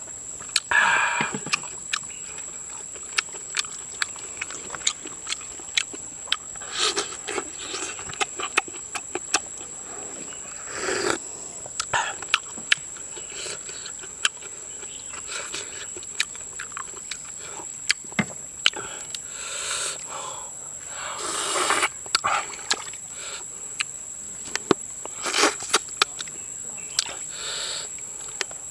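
Eating sounds: breathy slurps of hot soup from a wooden ladle, several times, among many sharp clicks and taps of the ladle on a metal wok and prawns being handled. A steady high insect drone runs underneath.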